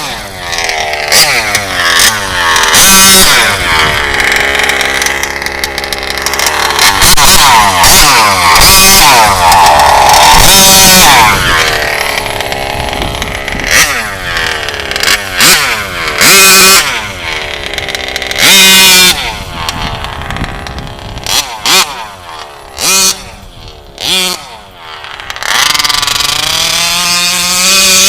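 RCMAX GT 90 two-stroke petrol engine in an HPI Baja 1/5-scale RC truck, revving up and down over and over as it is driven, with several short, very loud full-throttle bursts.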